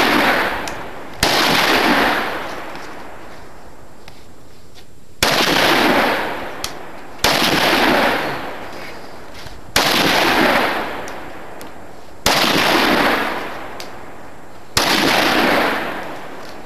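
Automatic rifle firing: six loud reports a few seconds apart, each dying away in a long echoing tail.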